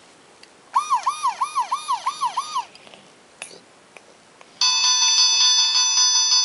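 Electronic siren effect from a children's interactive sound book's speaker: a tinny tone swooping down and up about three times a second for about two seconds. Near the end, a steady electronic ringing tone starts.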